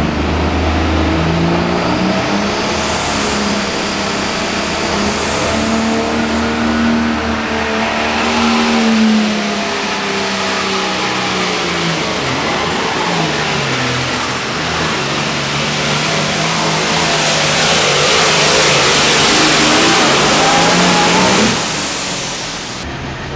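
Diesel pulling tractor making a pass under load against the sled, its engine running hard with the pitch swinging up and down and a high whine climbing a few seconds in. It is loudest in the last few seconds, then drops away sharply shortly before the end as the engine comes off the throttle.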